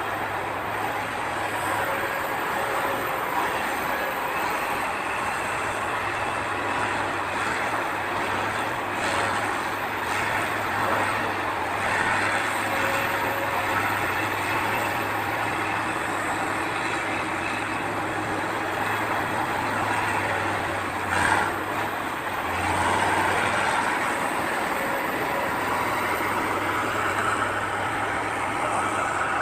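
Diesel engine of a heavy earthmoving machine running steadily while working, with a constant low hum. A single sharp knock comes about two-thirds of the way through.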